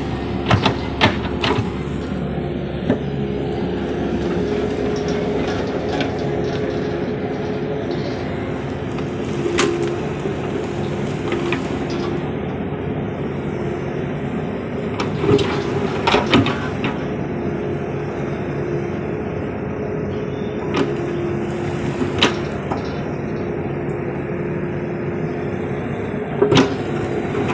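Mini excavator's diesel engine running steadily as the machine digs. Now and then the steel bucket knocks and scrapes against stones and soil, sharpest about halfway through and near the end.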